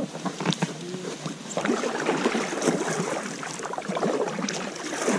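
Paddling an inflatable PVC kayak: the paddle splashes in the water, with frequent light knocks and scrapes against the boat.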